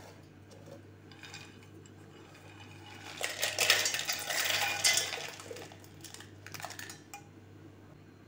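Roasted peanuts, dried red chillies and garlic cloves poured from a plate into a stainless-steel mixer grinder jar, rattling and clinking against the steel for about two seconds starting about three seconds in. A few lighter clinks follow.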